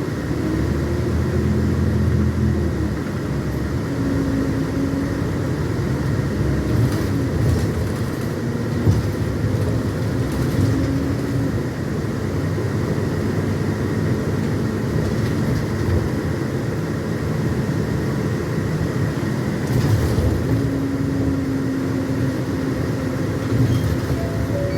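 A vehicle running, with a steady rumble of running noise. A low hum rises and falls at the start and comes in again for stretches around the middle and near the end.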